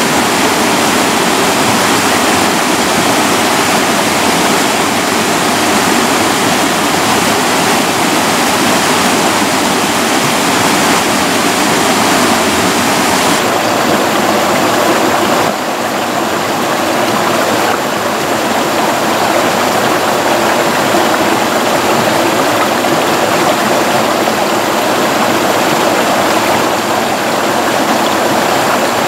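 A small waterfall spilling into a rocky pool, a steady loud rush of water. About halfway through, it gives way to a shallow stream running over rocks.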